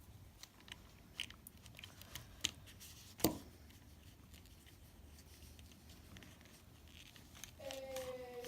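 Quiet handling of plastic headset parts during reassembly: scattered small clicks and rustles, one sharp click about three seconds in, and a brief falling squeak near the end.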